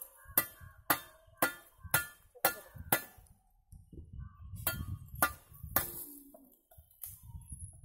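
Hard clinks of fired-clay bricks being struck while bricks are laid: a run of about seven sharp strikes, one every half second, then three more after a short pause.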